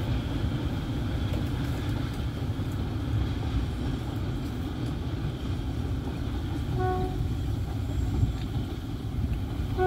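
D18E diesel-electric locomotive hauling a passenger train, running with a steady low rumble. Its horn gives one short toot about seven seconds in and starts sounding again at the very end.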